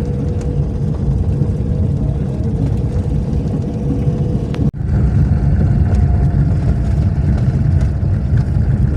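Daewoo Matiz driving over a rough, dusty dirt detour road, heard from inside the car: a steady low rumble of engine and tyres on the rough surface. The sound cuts out for an instant about halfway through.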